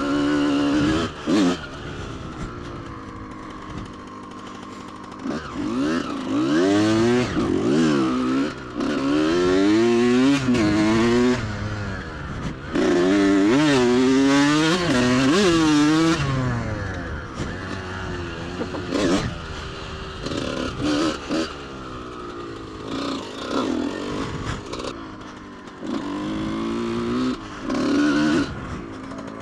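2003 Kawasaki KX125's 125cc single-cylinder two-stroke engine being ridden: it revs up again and again, climbing in pitch through the gears and dropping back as the throttle is closed. The hardest, loudest pulls come about a third of the way in and again around the middle, with lower, quieter running between them.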